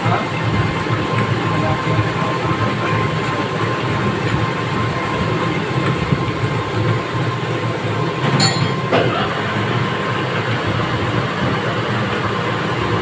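Metal lathe running steadily: a continuous mechanical rumble with a faint steady whine, and one brief sharp scrape about eight and a half seconds in.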